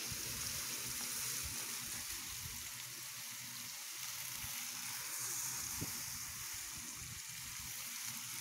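Water spraying from a garden hose, splashing steadily onto a dry shrub and the paving beneath it, a continuous hiss.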